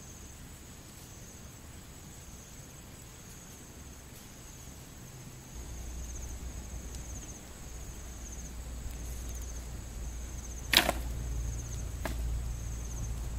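Small wood fire burning with a low steady rumble that starts about five seconds in, under high insect trills repeating in short bursts. About eleven seconds in comes one sharp crack of wood, with a lighter click about a second later.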